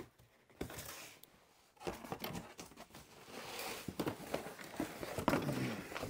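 Cardboard boxes and packaging being handled and opened: rustling and crinkling, with scattered knocks and taps.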